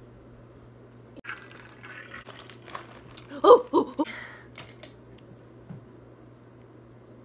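Clicks and rustling of makeup containers and brushes being handled close to the microphone: a scatter of sharp clicks, busiest and loudest just past the middle, over a steady low hum.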